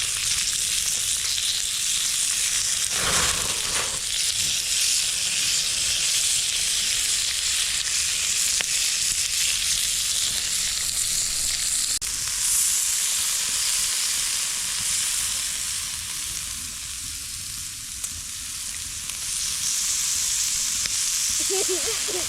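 Food sizzling and frying in a hot pan, a steady dense hiss with small pops.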